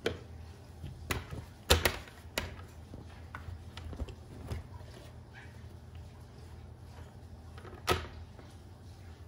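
Sharp plastic clicks and knocks as a plastic dog-door flap and its frame are worked with a screwdriver. Most come in the first two and a half seconds, the loudest about two seconds in, with one more near the end.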